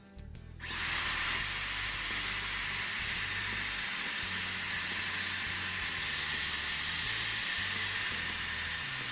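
Dyson Airwrap hair styler switched on about half a second in, then running steadily: a rush of air with a thin high whine from its motor.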